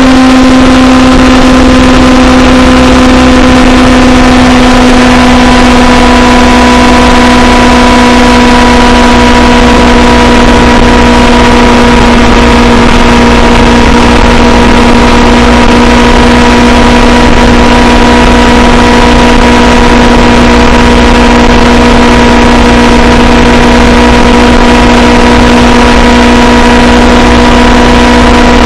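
Honda CBR500R's parallel-twin engine droning at a steady cruise, its pitch easing down slightly in the first second and then holding steady. A constant rush of wind and road noise lies under it.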